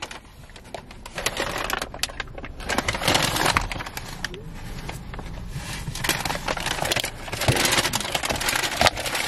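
Paper takeout bag and clear plastic-lidded açaí bowl rustling and crinkling on and off as they are handled.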